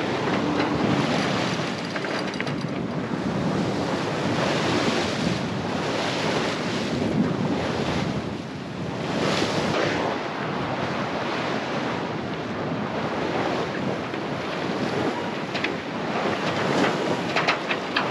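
Wind buffeting the microphone over the rush of water along a sailboat's hull as it sails through ocean swell, rising and easing every few seconds.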